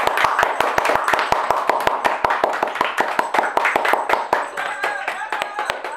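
One person clapping hands rapidly and evenly, about seven claps a second, for about four seconds, then stopping.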